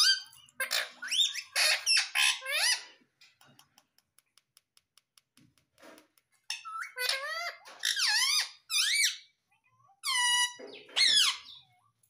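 Indian ringneck parakeet calling in high, squeaky bursts of rising and falling notes, in two spells with a pause of a few seconds between them. During the pause there is faint, quick tapping of its beak on a phone screen.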